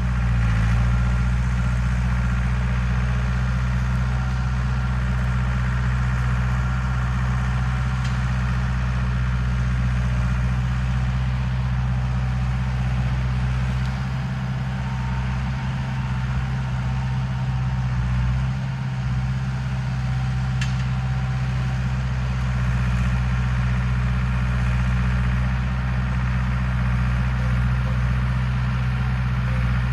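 John Deere 450B crawler bulldozer's diesel engine running steadily at a low, even drone.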